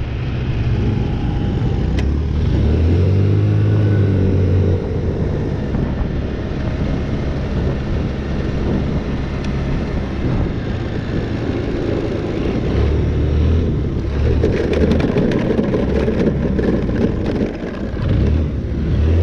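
Moped engine running under throttle, revving up and down, with a rough, rattly stretch about two-thirds of the way through.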